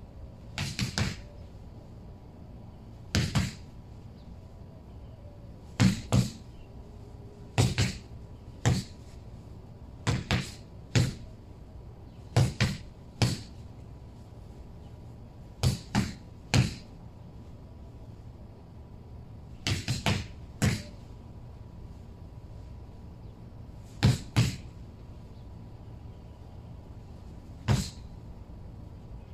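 Boxing gloves punching a hanging rubber truck tyre in combinations: short sharp thuds, one to three quick blows at a time, every few seconds.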